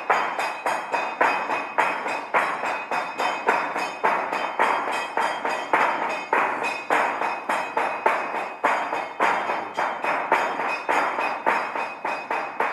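A wooden talanto, the monastery's semantron, struck with a mallet in a quick, steady rhythm of about three to four strokes a second, each stroke ringing briefly. It is the call to the start of the service.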